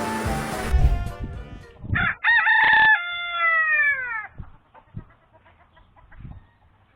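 A rooster crows once, starting about two seconds in and ending in a long falling note. A hiss fades out over the first second, and a few faint knocks follow the crow.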